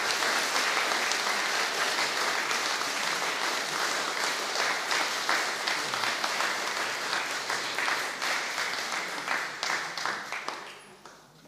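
Audience applauding, the clapping of many hands dying away near the end.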